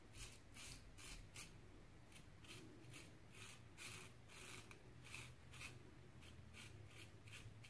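GEM 1912 single-edge safety razor scraping through lathered thick stubble on the cheek in short, faint strokes, about three a second.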